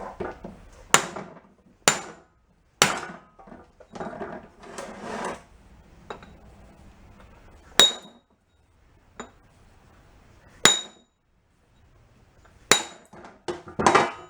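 Hammer blows, about eight sharp strikes at irregular intervals, several with a bright metallic ring, driving down on a jammed piston in a 1962 Honda Cub 50 engine to try to move it in the cylinder. Softer rattling and handling of tools come between the blows.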